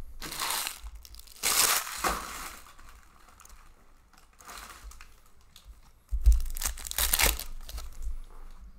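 Foil wrappers of sealed hockey card packs crinkling in several bursts as the packs are handled, then a pack wrapper being torn open, the loudest crackling, a little after six seconds in.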